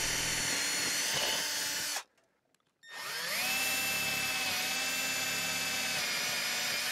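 Cordless drill boring pilot holes through asphalt shingles and roof sheathing into a truss, running with a steady whine. It falls silent about two seconds in, then spins back up, its pitch rising, and runs steadily again.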